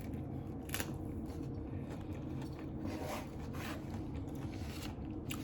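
A few crisp crunches of hard taco shells being bitten and chewed, over a steady low hum.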